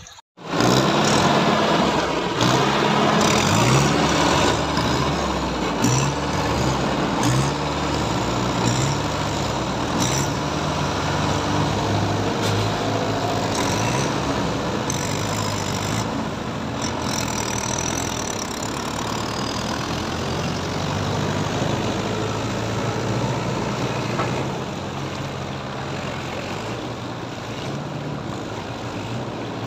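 Diesel engines of Mahindra Yuvo tractors running under load as they wade through deep water with trailers, the engine note rising and falling repeatedly through the first half. It starts abruptly just after the beginning.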